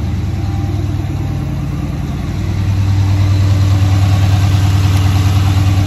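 Car engine idling steadily just after a jump-started cold start on a dead battery, with a low drone that grows louder about two and a half seconds in.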